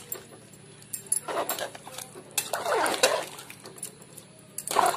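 Metal ladle stirring thick mutton and potato curry in a metal pressure cooker, scraping and knocking against the pot in three separate strokes.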